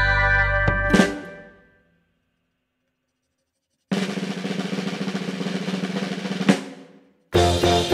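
Background music in pieces. A held, organ-like chord ends in a hit about a second in, followed by a gap of complete silence. A drum roll then runs for about two and a half seconds and ends in a hit, and a new tune starts near the end.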